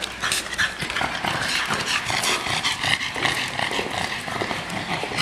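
Dogs' claws clicking on a tile floor in quick, irregular taps as a bulldog puppy and the other dogs move about.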